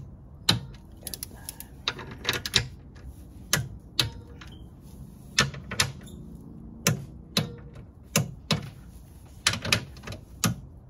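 Sharp metallic clicks from a socket ratchet and a click-type torque wrench as the skid plate's 10 mm bolts are run down and torqued to 10 N·m. The clicks come irregularly, a few a second, some single and some in quick pairs or clusters.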